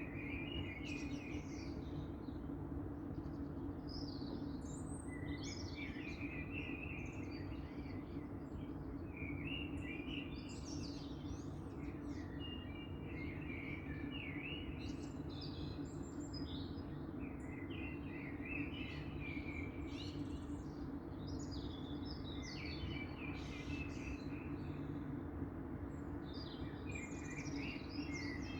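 Dawn chorus of songbirds: several birds singing short, varied phrases that overlap continuously, over a steady low hum.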